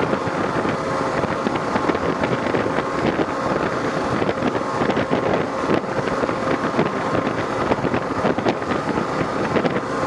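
Heavy wind noise rushing over the microphone of a motorcycle at highway speed, steady throughout, with a faint steady hum underneath from the Kawasaki KLR650's single-cylinder engine and tyres.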